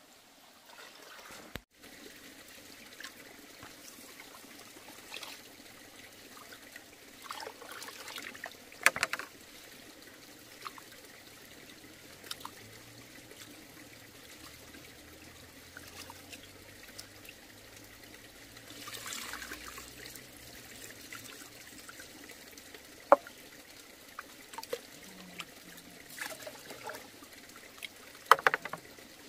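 Water trickling steadily, with a few sharp knocks scattered through it.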